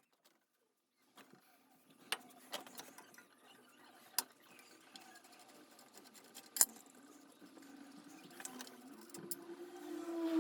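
A faint mechanical whir that starts about a second in and slowly grows louder and a little higher toward the end, with scattered sharp clicks and knocks of metal parts.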